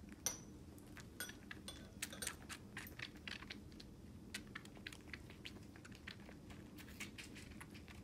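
Bobcat kittens suckling on bottle nipples: quiet, quick wet clicks and smacks of sucking and chewing, several a second, with one sharper click just after the start.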